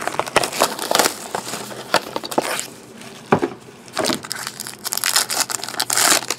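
Trading card box and pack packaging being handled and torn open: irregular crinkling and crackling with several sharper tearing rips.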